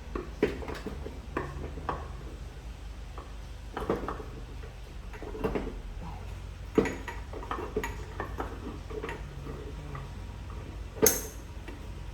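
Steel parts of an LT76 gearbox clinking and knocking together as they are handled and fitted: irregular sharp metallic clinks, the loudest a ringing strike near the end.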